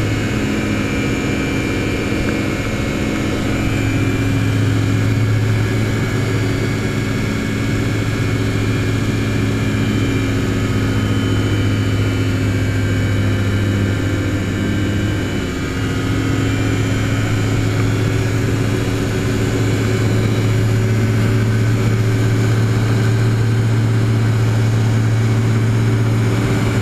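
Gyrocopter in flight, its engine and propeller droning steadily as heard from the cockpit. The drone dips briefly about halfway through, then holds a little louder.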